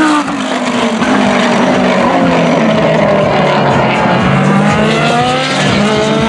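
Lamborghini Gallardo GT3's V10 racing engine at high revs: the pitch drops sharply at the start and keeps sinking for a few seconds as the car comes off the throttle, then rises again over the last two seconds as it accelerates.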